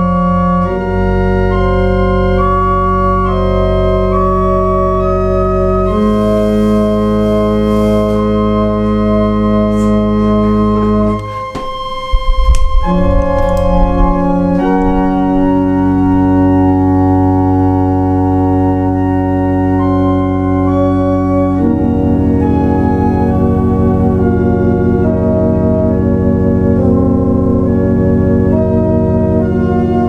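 Church pipe organ playing slow, sustained chords that change every few seconds. About eleven seconds in the sound briefly drops out and a few sharp knocks follow before the chords resume.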